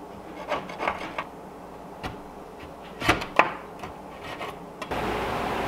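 Metal putty knife scraping and tapping against ceramic subway tiles, prying out tile mortar that has hardened in the joints: a few short scrapes, the sharpest two close together just past the middle. Near the end a steady rough rasping noise takes over.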